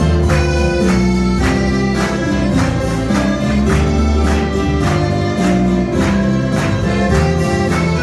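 Church string ensemble of mandolins and guitars with an accordion playing a hymn, strummed in a steady beat of about two strokes a second.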